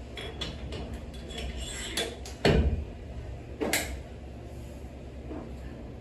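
Weight plates and collar being handled on a barbell sleeve: a run of small metal clicks, then a heavy clank about two and a half seconds in and a lighter clank about a second later.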